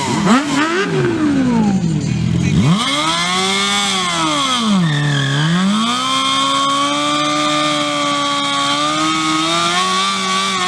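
Vehicle engine revved hard, its pitch swooping up and down several times. The revs dip about five seconds in, then climb and are held high for the last four seconds or so, with a steady high-pitched whine above the engine.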